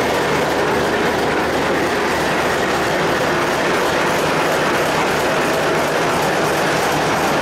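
Alco WDM3A diesel locomotive running at speed, heard from its outside walkway. Its 16-cylinder ALCO 251 engine and its wheels on the rails make a loud, steady din with no let-up.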